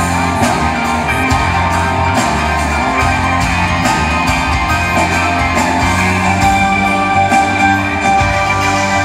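A live rock band, with electric guitar and drums, playing loudly and steadily, heard from the audience.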